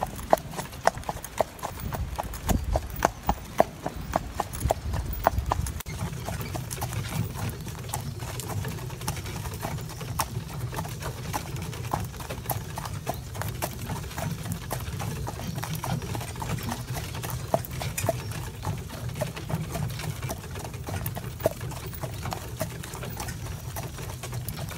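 Hoofbeats of a Gelderlander horse being driven in harness: a regular clip-clop, a few strikes a second. The strikes are crisp for the first several seconds, then softer under a steady low rumble.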